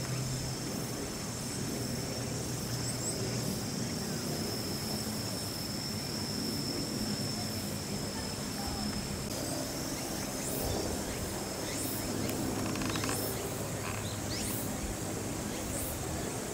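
Outdoor ambience of distant people's voices murmuring, with a steady high insect drone that fades out about two-thirds of the way through and a few short high chirps in the second half.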